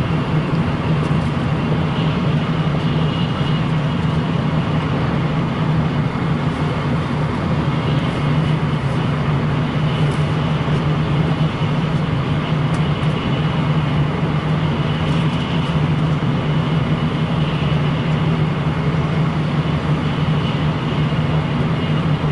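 Steady running noise of a Shinkansen bullet train heard from inside the passenger car: an even rush of noise with a constant low hum.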